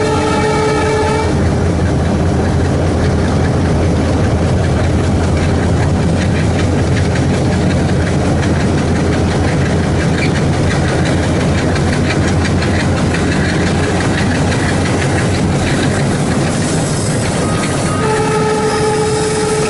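ALCO WDG-3A diesel locomotive engine chugging steadily under load. Its horn sounds at the start and cuts off about a second in, then sounds again near the end.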